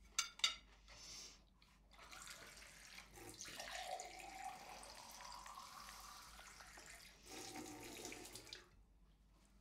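A water tap running for about six seconds and then turned off, likely filling a glass. Two sharp clinks come just before it starts.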